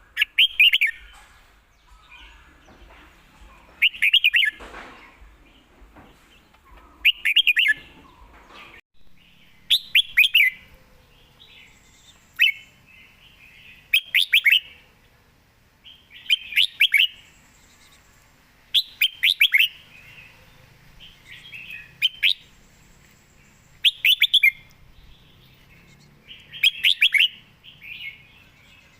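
Red-whiskered bulbul singing short, clear song phrases, one every two to three seconds.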